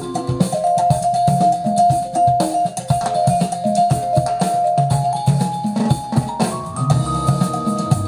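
Recorded music with a drum-kit beat and a long held melody note, stepping up to higher notes about two thirds of the way through, played back through a pair of large loudspeakers driven by the NFS225 prototype amplifier.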